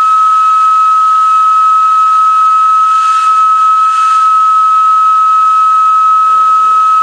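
Flue organ pipe blown with helium, sounding one steady high whistle-like tone over a breathy rush of gas, the hiss swelling slightly twice midway.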